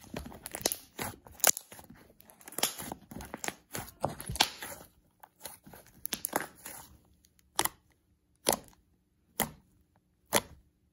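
Cloud-cream slime being stretched, folded and squished by hand, with a dense run of sticky crackles and sharp clicks. After about six seconds it is pressed with the fingertips, giving single sharp pops about once a second.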